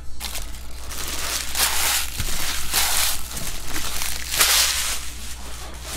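Foil trading-card pack wrappers crumpled and crinkled by hand, in repeated rustling bursts, the loudest about four and a half seconds in.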